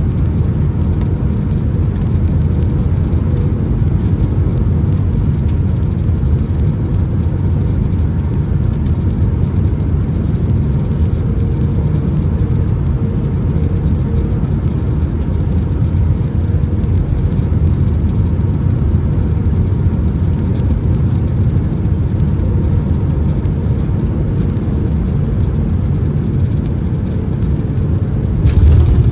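Steady roar of an Airbus A319-131's IAE V2500 engines and airflow, heard inside the passenger cabin, with a faint steady hum over it. The low rumble grows louder about a second before the end.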